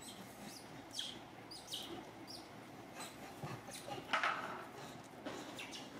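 Frightened kitten hissing at approaching macaques, loudest about four seconds in. Several short, high, falling chirps sound in the first half.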